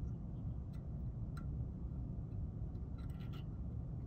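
Thin copper shear wire being threaded through an aircraft switch guard's contact point, giving a few faint light ticks and scrapes, with a small cluster near the end, over a steady low hum.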